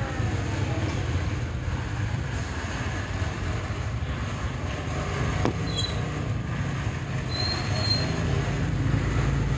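Steady low rumble of a running engine or machine, with a few short high squeaks in the second half.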